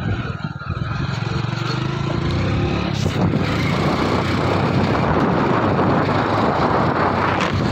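Motorcycle engine running while the bike rides along, with wind noise on the microphone growing from about three seconds in.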